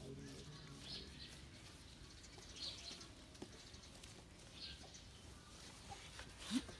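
Faint background bird chirps, a few short calls a second or two apart, over a low hum. Near the end comes a brief louder voice-like sound, bending in pitch.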